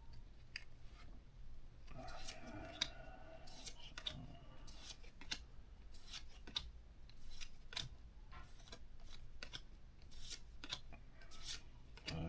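Pokémon trading cards sliding against one another and being flipped over in the hand, a string of short snipping and rasping clicks.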